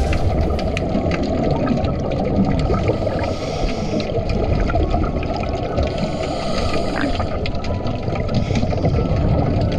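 Underwater noise picked up by a submerged action camera: a steady, muffled low rumble and gurgle of water and divers' exhaled scuba bubbles, with scattered faint clicks.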